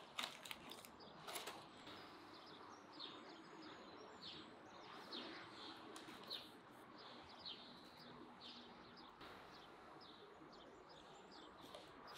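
Small birds chirping faintly in short, repeated calls, with two sharp clicks in the first second and a half.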